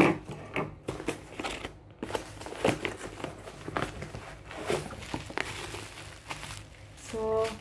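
Cardboard box being opened by hand: flaps rustling, scraping and knocking, then bubble wrap crinkling near the end as the wrapped item is pulled out.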